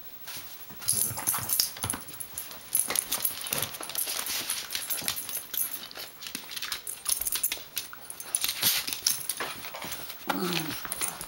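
Two small dogs tussling at close range: a busy run of quick scuffling clicks and rustles with short dog vocal sounds, and one brief pitched dog vocalisation near the end.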